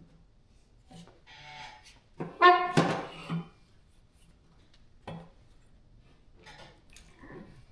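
Chevy 350 small-block engine being rolled over: a few light metal knocks, and about two and a half seconds in a loud, short metallic squeal with a clank.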